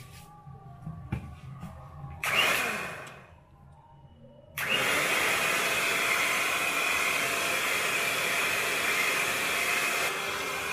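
Electric hand mixer beating rice-flour batter for patishapta pithe in a steel bowl. A short burst about two seconds in winds down, then from about halfway through the mixer runs steadily.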